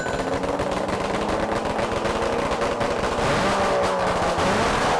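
Prototype two-stroke engine on a bench stand, running loud just after firing up. Its pitch climbs as it is revved in the second half.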